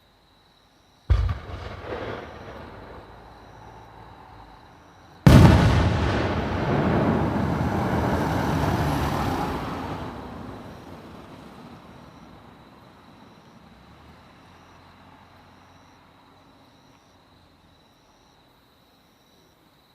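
Aerial fireworks shells bursting close by: a sharp boom about a second in, then a louder boom about four seconds later followed by several seconds of crackling and rumbling that slowly fades away. Crickets chirp steadily underneath.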